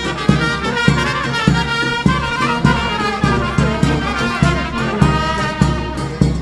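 Taraf folk band music led by brass, playing a lively tune over a steady beat of about two thumps a second.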